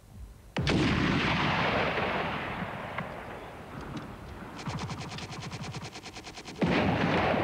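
An 84 mm Carl Gustav recoilless anti-tank gun fires about half a second in, a sharp bang followed by a long rolling echo. A fast, even rattle of about ten shots a second follows, then near the end a second loud bang as the round strikes an armoured-car target.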